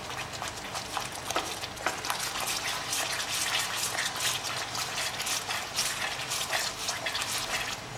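Thick onion-tomato masala sizzling and crackling as it fries in ghee in a pan, with a wooden spatula stirring and scraping through the paste. It is the bhuna stage, the masala being fried down until the ghee separates.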